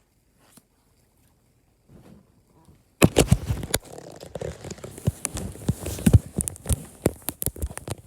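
Paper book pages being flipped rapidly back and forth close to the microphone, a dense run of rustling and flapping snaps that starts about three seconds in.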